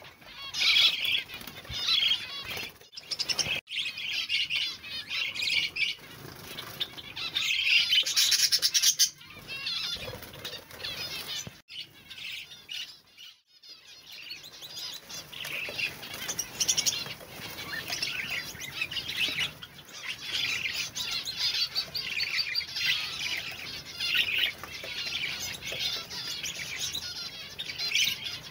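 Budgerigars chirping and chattering in a dense run of fast high calls, dropping out briefly around the middle.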